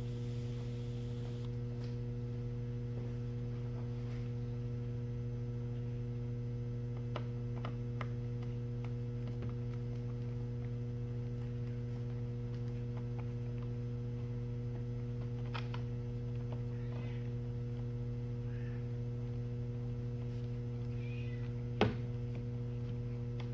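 Steady electrical mains hum, with a few faint scattered clicks and one sharp click near the end.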